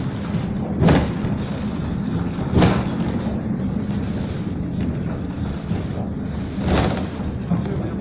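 Steady engine and road noise heard from inside a moving vehicle. Three brief louder rushes stand out, about one second in, near the middle and near the end.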